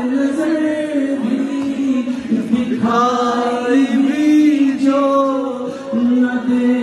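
A man's voice singing an Urdu devotional kalam unaccompanied, drawing out long held notes that bend slowly up and down in pitch.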